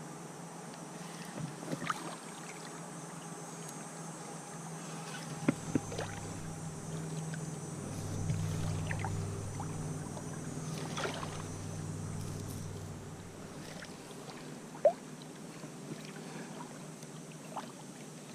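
River ambience around a canoe: water moving, with scattered small clicks and knocks. A low rumble swells from about five seconds in and fades away about fourteen seconds in, and there is one sharp tick a little after that.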